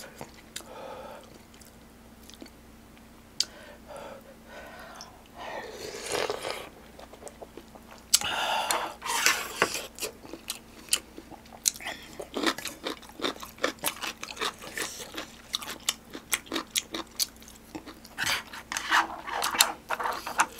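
A man chewing a mouthful of soup-soaked dumpling close to a microphone: wet mouth sounds, with a few louder smacking stretches at first and then a quick run of small clicks through the second half.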